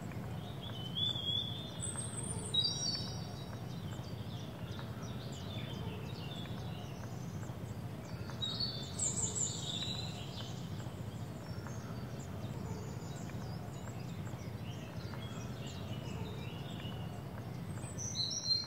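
Birds calling in short whistled phrases, in clusters about two seconds in, around nine seconds in and again at the very end, over a steady low hum of background noise.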